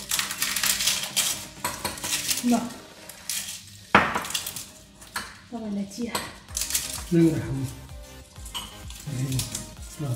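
Dishes and cutlery clinking and clattering, including a metal spoon knocking in a ceramic mug. It comes as an irregular string of sharp clinks, the loudest about four seconds in.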